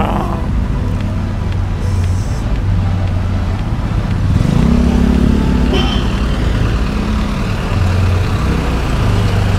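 A vehicle engine idling with a steady low hum, over street traffic.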